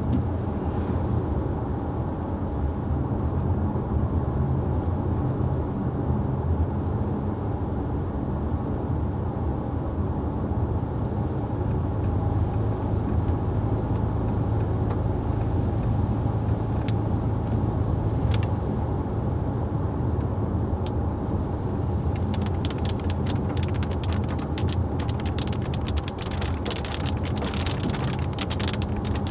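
Car on the road, its engine and tyres making a steady low rumble. About three quarters of the way through, a dense patter of raindrop ticks begins on the car.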